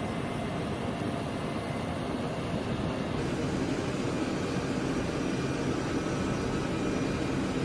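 Jet engines of a C-17 Globemaster, its four turbofans running as a steady roar with a faint high whine above it.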